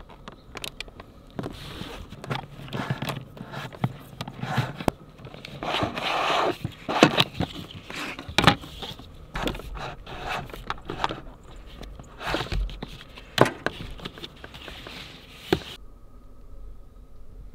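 Hands working cables and plastic corrugated wire loom at a plastic junction box: scraping and rustling with irregular sharp clicks and knocks. The sound drops to a quiet background about two seconds before the end.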